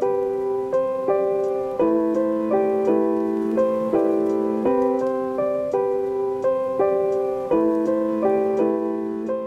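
Background music: a gentle keyboard melody with notes struck at an even pace, a little more than one a second, over held low notes.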